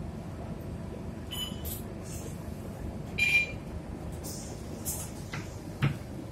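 Cabin of a Scania K230UB bus with its five-cylinder diesel running as a steady low rumble. Short high hisses come and go over it, the loudest about three seconds in with a brief beep-like tone in it, and there is a single knock near the end.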